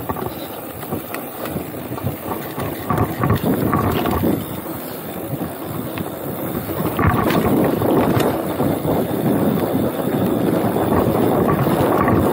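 Wind buffeting the chest-mounted camera's microphone on a mountain bike ride down a dirt track, mixed with tyre rumble and scattered knocks and rattles from the bike over bumps. It grows louder in the second half.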